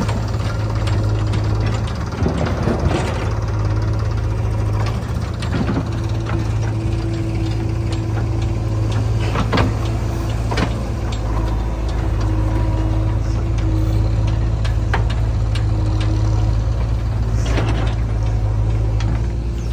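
Diesel engines of a JCB 3DX backhoe loader and a tractor running steadily, with several sharp clanks and knocks scattered through as the backhoe bucket digs earth and dumps it into the tractor's trolley.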